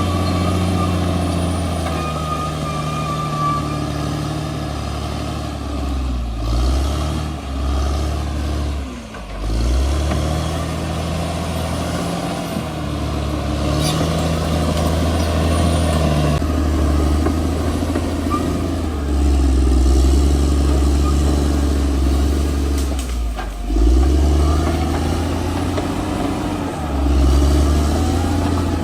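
Bulldozer's diesel engine working under varying load, its pitch dropping and rising, with a few brief dips as the throttle eases off.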